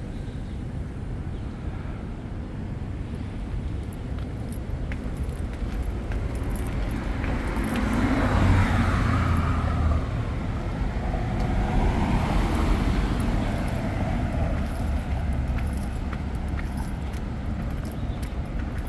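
Road traffic: a steady low rumble with vehicles passing. The noise swells to its loudest about halfway through, swells again shortly after, then fades.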